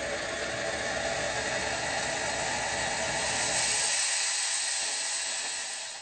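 Clatronic ES-2243 steam espresso maker running, its boiling water and steam hissing and sputtering out into the jug. About four seconds in the deep rumble drops away and a higher hiss grows louder, then fades near the end.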